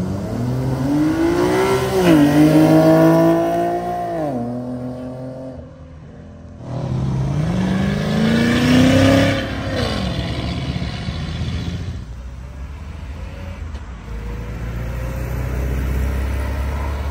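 Cars accelerating hard away from a car show. One engine revs up and drops in pitch at a gear change about two seconds in, holds, then fades. After a short lull a second engine climbs in pitch, then falls away into a low engine rumble.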